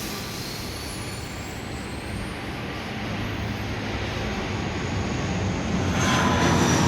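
Train approaching through the station, its rumble growing steadily louder, with a thin high whine above it.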